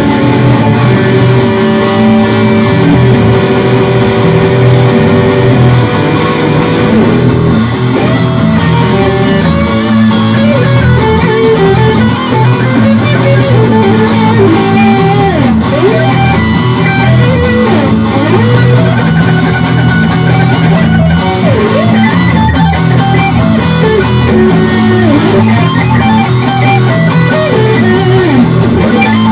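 Electric guitar playing hard rock in E minor, with long held notes at first and then many bent notes, over a steady low bass line. The recording is loud and of poor quality.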